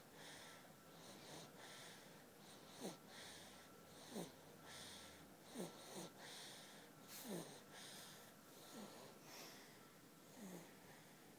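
A 3-week-old baby snoring in her sleep: faint breaths, each with a short squeak that falls in pitch, about every second and a half.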